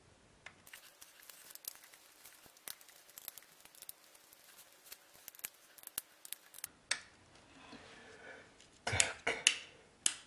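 Small plastic clicks and light scraping as a wall switch block is pushed and screwed into its mounting box, with a quick cluster of louder clicks near the end.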